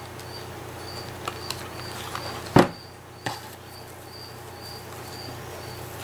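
A cricket chirping steadily, a short high chirp about twice a second. About two and a half seconds in comes a single sharp knock, the hot glue gun being set down on the table, along with a few light clicks of handling.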